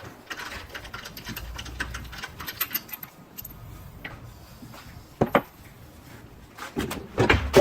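Rapid light metallic clicking and clinking of lug nuts and tools being handled during wheel removal, followed by a couple of louder knocks about five seconds in and near the end.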